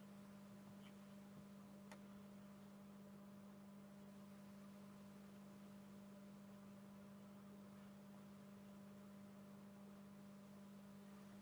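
Near silence with a steady electrical hum, one low tone with fainter higher ones over faint hiss, and a single faint click about two seconds in.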